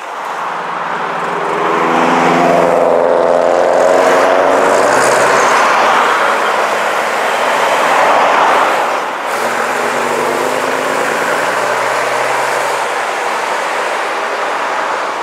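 Open-top Bristol RE bus engine pulling past under power, its note rising and then falling away, with passing car tyre and engine noise. A second pass follows after about nine seconds.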